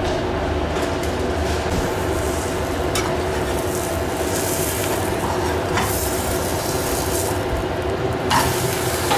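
Buttered rye sandwich frying in a nonstick pan on a gas burner: a steady sizzle over a low hum, with a metal spatula scraping under the bread a few times.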